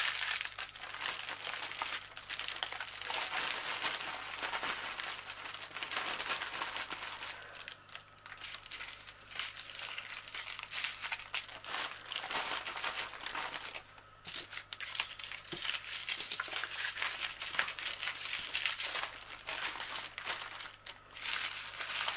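Small plastic bags of diamond-painting drills and a large clear plastic bag crinkling and crackling steadily as they are handled and packed, with short lulls a few times.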